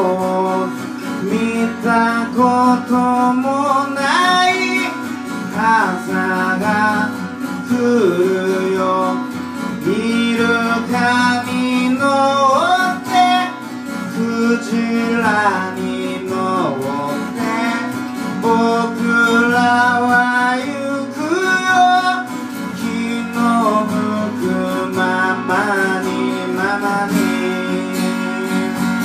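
A song performed on strummed acoustic guitar, with a sliding vocal melody sung over it.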